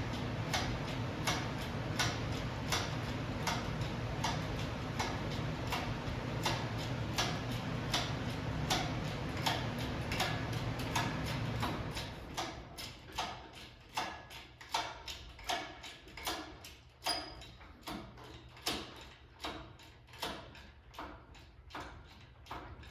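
A jack being worked to raise a car makes steady, regular mechanical clicks, about two a second. A low hum runs under the clicks and drops away about halfway through, leaving the clicks standing out on their own.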